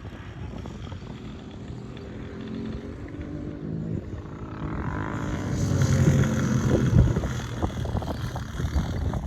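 ATV engine running, growing louder from about halfway through as it revs or comes closer.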